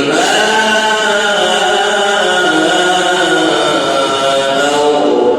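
Male reciter's voice chanting the Quran in the melodic mujawwad style, drawing out one long ornamented phrase with slow bends in pitch.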